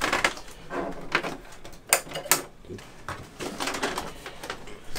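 Plastic casing of a 19-inch Iiyama Vision Master Pro 454 CRT monitor knocking and scraping as it is turned around by hand on a table, with two sharp knocks about two seconds in.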